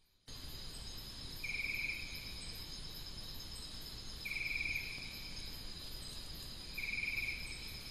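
Insect chorus: a steady high shrill, with a louder pulsed trill three times, about every two and a half seconds.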